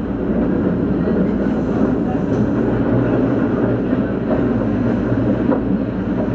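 Tobu Daishi Line electric commuter train running, heard from inside the driver's cab: a steady rumble of wheels on rail, with a few faint clicks from the track.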